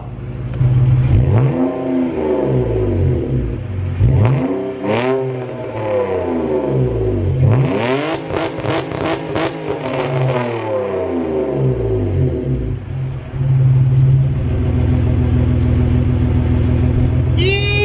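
BMW E46 323Ci's 2.5-litre straight-six with the rear muffler deleted and a straight 3-inch pipe in its place, revved up and down several times, then settling to a steady idle about 14 seconds in. The exhaust is loud, with no rear muffler to damp it.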